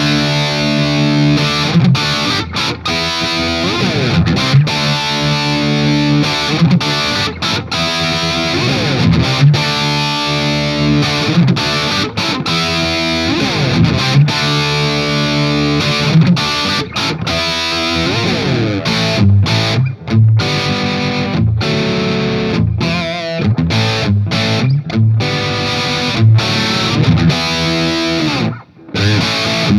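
Distorted electric guitar played through a Marshall Silver Jubilee 2555X 100-watt reissue amp, a saturated hot-rodded "brown sound" tone: hard-driven riffs mixing chords and single notes with a few pitch slides, and short stops about twenty seconds in and near the end.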